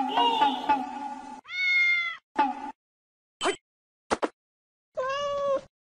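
A cat meowing several times in separate calls with silent gaps: a longer meow about a second and a half in, a few short ones, and another longer one near the end.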